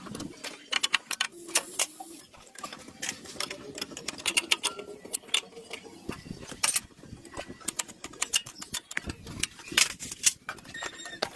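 Irregular sharp clicks and taps of hand tools on metal parts during tractor repair work, several close together, then spaced out.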